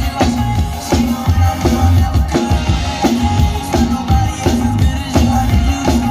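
Loud music with a steady drum-kit beat and a repeating bass line.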